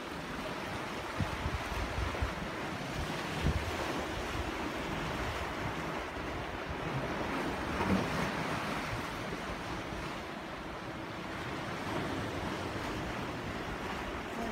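Rough sea: waves surging and washing in along the shore, with one louder surge about halfway through, and wind buffeting the microphone.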